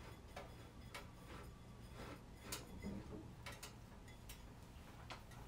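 Faint, irregular clicks of a metal spoon tapping and scraping against a bowl as hummus is spread and swirled into a design.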